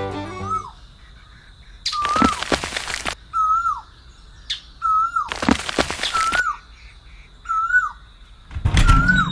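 A bird calling over and over, the same short rising-and-falling chirp about once a second, over a thin steady high whine. Three louder bursts of rustling noise and a single sharp click break in between the calls.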